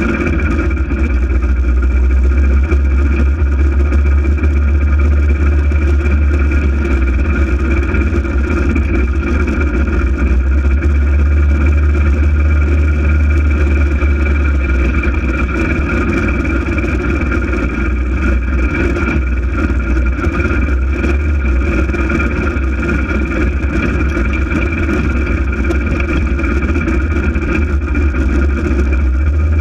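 Polaris RZR 800 side-by-side's twin-cylinder engine running steadily under way: a loud, even, low drone that barely changes in pitch.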